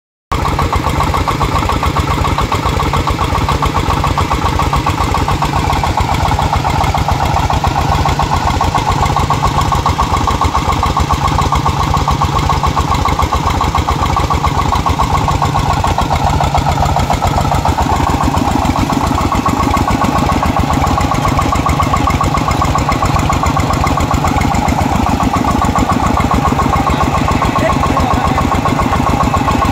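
Single-cylinder horizontal diesel engine of a công nông farm tractor running steadily with a fast, even beat, belted to a water pump.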